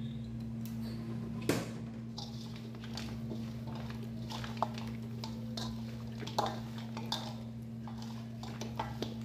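Bare hands mixing chunks of marinated goat meat in a stainless steel bowl: wet squishing with scattered clinks and knocks of bone and meat against the metal, the sharpest knock about a second and a half in, over a steady low hum.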